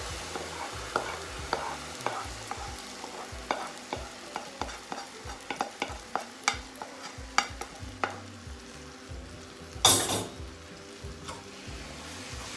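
A spoon stirring and tapping against a pan of hot, sizzling food, with many sharp clicks through the first eight seconds. About ten seconds in, a louder, brief rush of noise.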